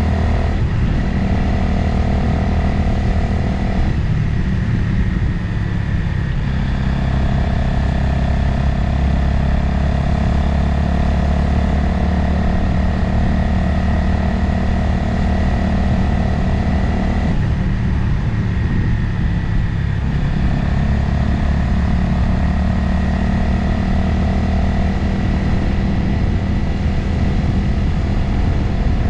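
Motorcycle engine running at a steady road speed, with wind noise over it. Twice, about four seconds in and again past the halfway mark, the engine note breaks and shifts for a couple of seconds before settling again.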